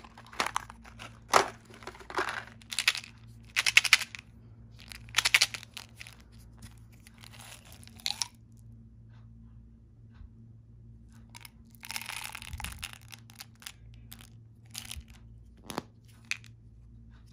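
Candy packaging handled close up: a cardboard candy box and a plastic mini M&M's tube crackle and rattle in irregular bursts for about eight seconds as candy-coated chocolates are shaken out into a palm. After a lull comes another rustling burst, then a few sharp clicks from the tube's plastic snap cap near the end.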